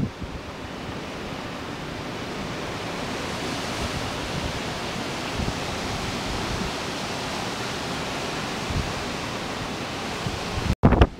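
Steady roar of typhoon wind and rain, an even dense hiss. Near the end it cuts out for an instant, then gusts buffet the microphone.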